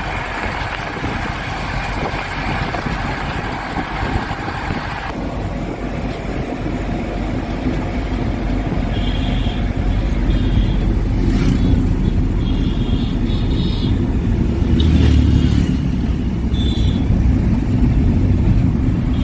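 A car driving along a winding road, heard from inside: engine and tyre rumble with a rush of wind for the first few seconds. After that it becomes a lower, steadier rumble that grows louder, with several short high-pitched beeps in the second half.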